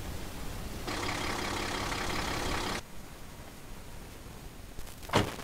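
An engine idling steadily for about two seconds, starting and stopping abruptly, then a single sharp click near the end.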